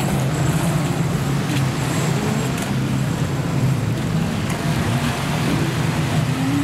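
Waves washing and breaking, with wind on the microphone, around a small electric RC speedboat running through the surf; a faint high steady tone sounds for the first couple of seconds.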